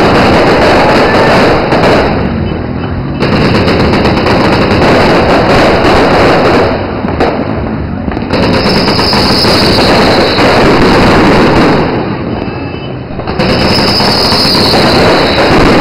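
Fireworks and firecrackers going off in dense, rapid volleys of crackling bangs, like machine-gun fire. They come in long stretches, with a short lull about every four seconds.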